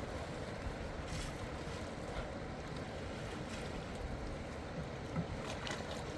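Steady rush of flowing river water, with wind rumbling on the microphone and a few faint knocks.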